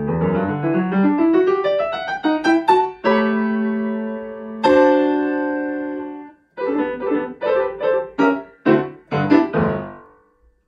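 Grand piano played solo: quick running notes, then two held chords that ring out and fade, then a string of short, sharp chords that close the piece near the end.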